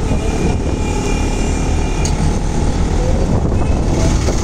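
Steady low rumble of a moving vehicle: engine and road noise heard from the vehicle carrying the camera, with street traffic around it.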